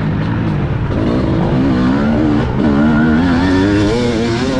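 TM Racing 250 motocross bike engine heard onboard, accelerating out of a corner. After about a second its pitch climbs, then wavers up and down as the throttle works.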